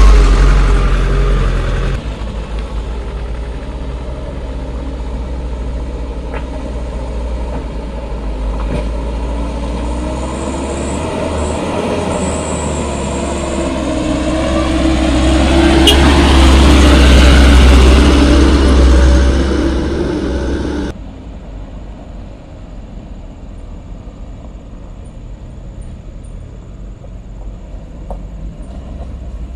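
Mitsubishi Fuso Canter light truck's engine pulling up a steep climb, rising in pitch and growing louder as the truck comes close, loudest about two-thirds of the way in. It then cuts suddenly to a much quieter engine of a van further off on the climb.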